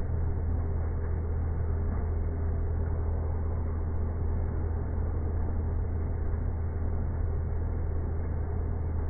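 CNC lathe turning a steel bar with a WIDIA WNMG carbide insert: a steady low machine hum under an even cutting hiss, dull and muffled.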